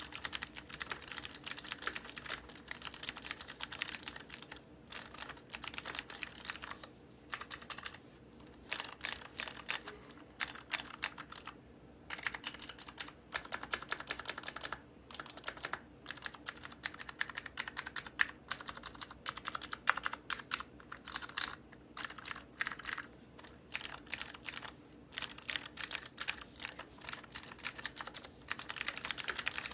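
Typing on a Cherry MX Board 3.0S keyboard with clicky Cherry MX Blue switches, their springs lubed with Krytox 105 and their housings fitted with 0.15 mm switch films. The keys give quick runs of sharp clicks, broken by brief pauses of under a second, several times.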